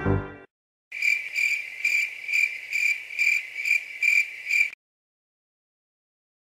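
Cricket-chirping sound effect used as the comic 'awkward silence' cue: a high chirp repeating steadily about twice a second for nearly four seconds, then cutting off suddenly. A brass music phrase ends just before it starts.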